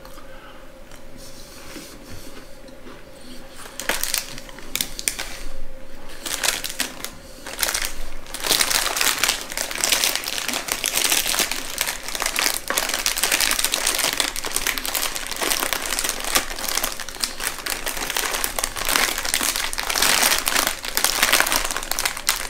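Plastic wrapper of a cheese-cracker packet crinkling as it is handled and turned over. There are a few short crackles from about four seconds in, then continuous crinkling from about eight seconds in.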